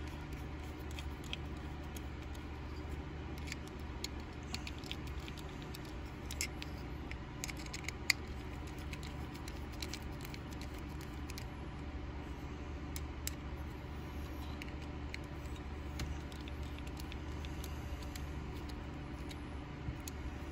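Scattered faint metallic clicks and ticks as a precision screwdriver turns the small screws in a Buck Spitfire's aluminium handle, over a steady low hum.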